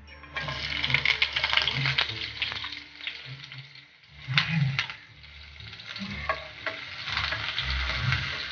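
Onion going into hot cooking oil in a pan: a sudden sizzle with constant spitting crackles as it is stirred, easing a little midway and flaring up again about four and a half seconds in.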